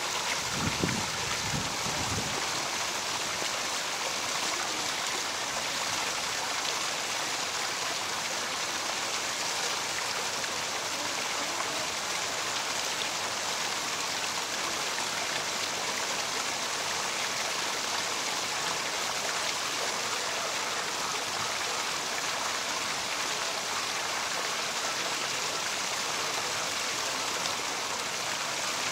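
Waterfall: a steady, even rush of falling water. A few brief low bumps sound in the first two seconds.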